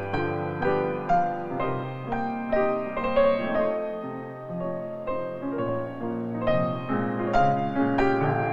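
Background piano music: a gentle melody of steadily paced notes.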